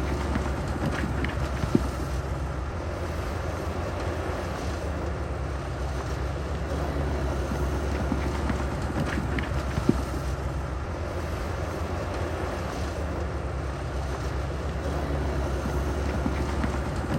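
Heavy construction machine's diesel engine running steadily under load, with a couple of sharp knocks, one just under two seconds in and one near ten seconds in.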